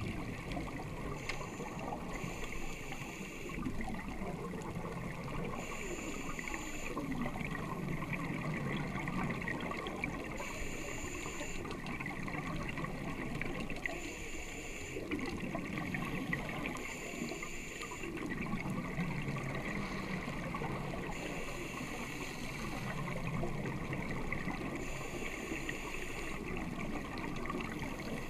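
A scuba diver's breathing heard underwater through the camera housing: the regulator hisses and exhaled bubbles gurgle, in a cycle that repeats every four to five seconds.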